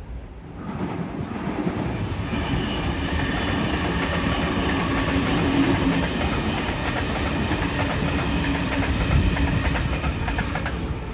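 Sydney Trains Waratah double-deck electric train passing: a steady rumble of wheels on the track with clicks over the rail joints and a steady whine from its motors. It swells in about a second in.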